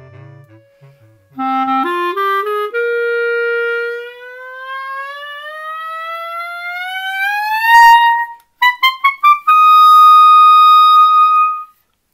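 Clarinet playing a few short rising notes, holding one, then sliding smoothly upward by about an octave in a glissando that swells to its loudest at the top. A few quick rising notes follow, ending on a long held high note.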